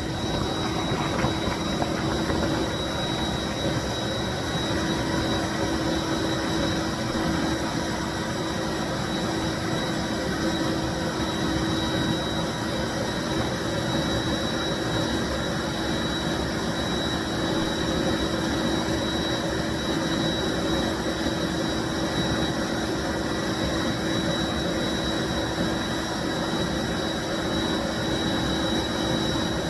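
1995 Bissell SC deep cleaning machine running steadily: a constant rush of motor and airflow with a steady hum and a thin high whine running through it.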